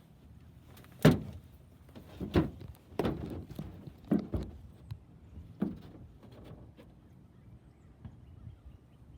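A handful of irregular knocks and thumps over about five seconds, the first and loudest about a second in, the rest fading off.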